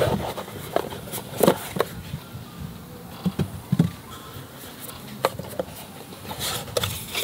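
Hands opening a cardboard product box: the lid sliding off and irregular taps, clicks and scrapes of the packaging being handled.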